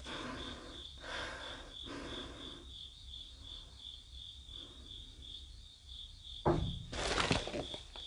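A cricket chirping in a steady, even pulse, several chirps a second, over faint rustling. Near the end come two louder scuffing, clattering noises.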